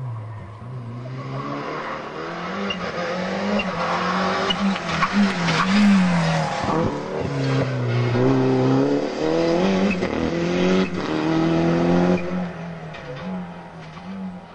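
Toyota Celica rally car's engine revving hard, its pitch climbing and dropping again and again as it accelerates through the gears and lifts for the hairpin. It grows louder to a peak about halfway through, then fades as the car pulls away.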